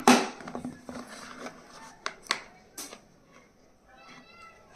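Clicks and light knocks of a plastic pencil case being handled: one loud click at the start that trails off, then a few sharp taps about two to three seconds in, with a faint short pitched sound near the end.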